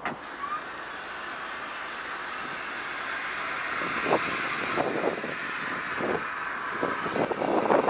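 Kitson & Co 0-6-0T saddle-tank steam locomotive hissing steam, the hiss slowly growing louder. From about halfway it is joined by irregular soft puffs and knocks.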